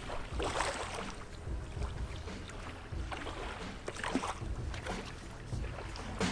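Small waves lapping and washing onto a stony shoreline in an irregular rhythm, with wind rumbling on the microphone.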